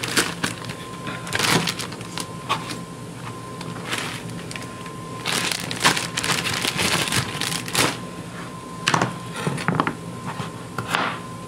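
A plastic zip-top bag crinkling and rustling as a handful of carrot peels is pushed into it, followed by peeled carrots and a kitchen knife being handled on a plastic cutting board, with a few light knocks.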